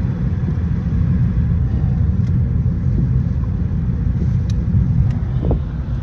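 Steady low rumble of a car on the move, heard from inside the cabin, with a few faint clicks.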